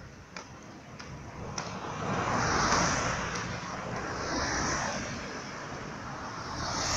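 A vehicle passing, a broad rushing noise that swells to its loudest about two and a half seconds in, then eases and swells again twice. A few faint clicks come before it.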